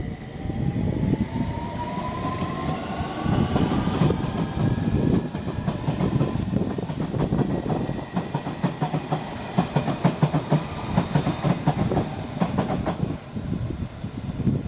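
Electric train pulling away, its motor whine rising in pitch over the first few seconds, then its wheels clattering over rail joints in a rapid run of clicks.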